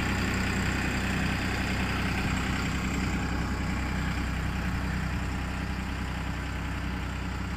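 Mini road roller's engine idling steadily, its level easing down slightly toward the end.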